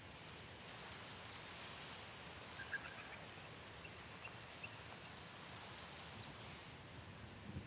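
Quiet bush ambience: a faint steady hiss of outdoor air with a brief flurry of small bird chirps about three seconds in and a few faint high peeps after it.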